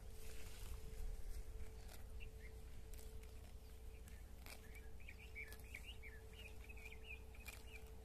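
Cows grazing: short sharp tearing sounds of grass being cropped, one every second or two. A small bird chirps in a quick run of notes from about five seconds in.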